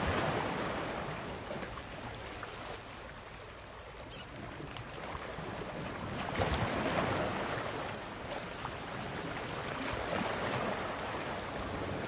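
Water sloshing and splashing against the side of a boat as a hand and a fish's tail stir the surface, swelling three times: at the start, about six seconds in, and again near ten seconds.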